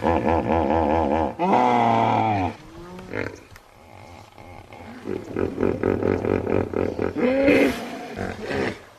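Hippopotamus calling: two loud, pitched, pulsing calls in the first two and a half seconds, then a quieter run of rhythmic grunts, about five a second, and one more short call near the end.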